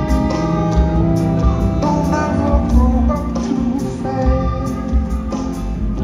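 Live band playing: strummed acoustic guitar over electric bass, with sharp percussive hits at a regular beat.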